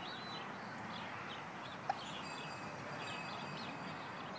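Steady low background noise with faint, short bird calls scattered throughout.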